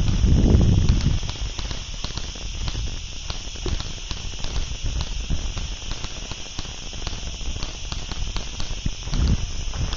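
Crackling, rustling noise with a steady hiss and many small clicks, and low rumbles of buffeting on the microphone in the first second and again near the end.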